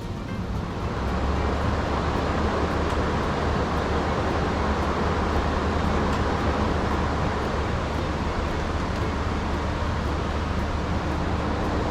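Hessaire MC37M evaporative swamp cooler running with its fan on high: a steady, pretty loud rush of air over a constant low hum, reaching full level about a second in.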